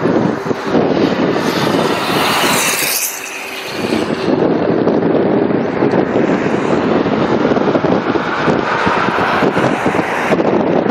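Wind buffeting the microphone of a camera moving along a highway, over road and traffic noise. A brighter hiss rises and fades between about one and a half and four seconds in.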